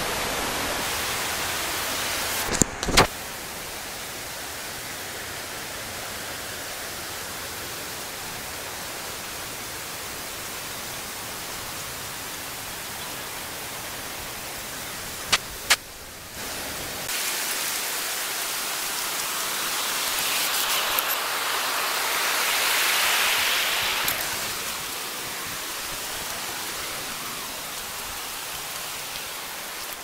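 Waterfall rushing at close range, a steady even roar of falling water. Brief clicks break in about 3 s and 15 s in, and from about 17 s in the sound is thinner and hissier, swelling for a few seconds.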